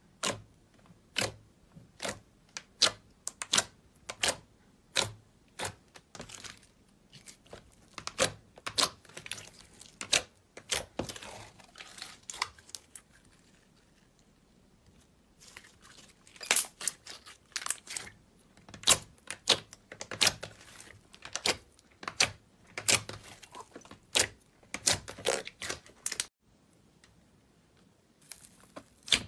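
Slime being pressed and worked by hand, giving irregular sharp pops and clicks as trapped air bursts, in clusters with a couple of short pauses.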